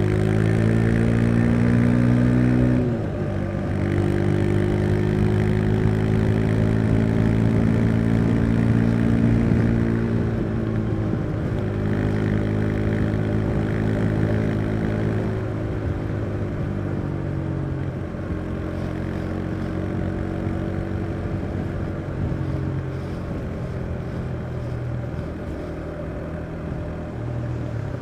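Husqvarna Svartpilen 401's single-cylinder engine pulling the bike along under way. It revs up and drops sharply about three seconds in as a gear is changed, then climbs steadily again. It eases down a couple of times after that and runs lower and steadier toward the end.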